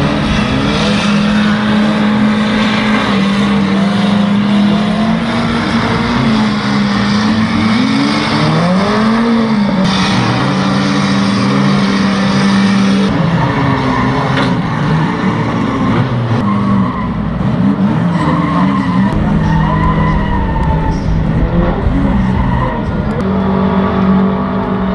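Engines of several pre-1980 banger racing cars running and revving over and over, pitch rising and falling, with tyres spinning and skidding on the dirt track.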